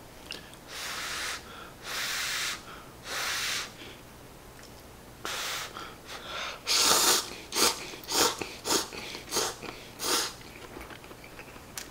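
A man blowing on hot instant noodles held up on chopsticks, three long breaths, then slurping the noodles in the second half: one loud slurp followed by a quick run of short, sharp sucks.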